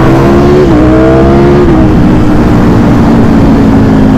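Ducati Streetfighter motorcycle engine accelerating hard: the pitch climbs, drops at an upshift about half a second in, climbs again, and then settles into a lower, slowly falling drone after about two seconds. Wind rushes over the microphone throughout.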